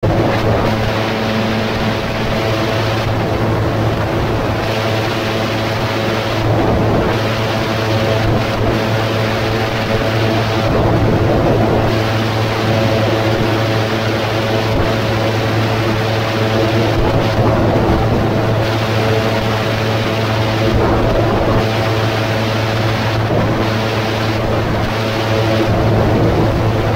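2017 AutoGyro MTOsport gyroplane in cruise flight: its engine and pusher propeller running at a steady pitch, with wind rushing over the open cockpit that swells and fades every few seconds.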